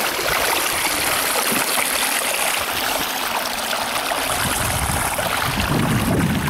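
Water of a small stream running and trickling through a beaver dam, a steady rushing sound. A low rumble joins in over the last second or two.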